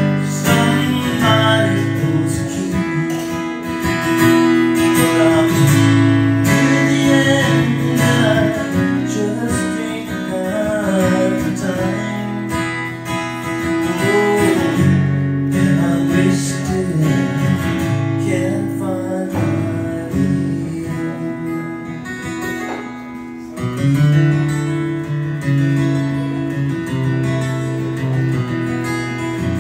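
Live solo acoustic guitar, strummed and picked, with a man singing over it for much of the time; near the end the guitar carries on alone.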